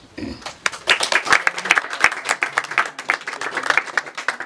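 A small group applauding with fast, dense hand claps, starting just after the song's last note fades.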